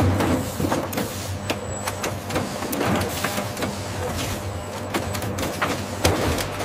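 Automated packaging-line machinery running: a steady low hum under frequent clicks and short motor whirs, with louder knocks at the start and about six seconds in.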